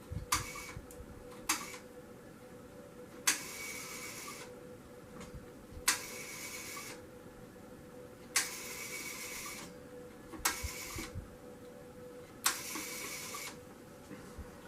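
Automatic Electric payphone's dial being dialled. Each digit begins with a click, then the dial whirs back for about a second. This repeats five times, roughly every two and a half seconds, after a few lighter clicks at the start.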